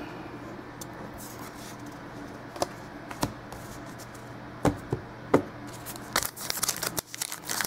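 Quiet handling of trading cards and packs on a desk: a few sharp taps in the middle, then, from about six seconds in, the crinkling of a card pack's wrapper being picked up, over a steady low hum.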